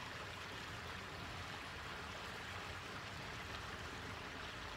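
Steady, even background noise with no distinct events: a constant hiss like rushing water or moving air.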